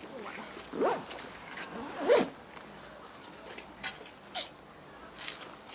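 Two short, harsh penguin calls about a second apart, the second louder, followed by a few faint clicks.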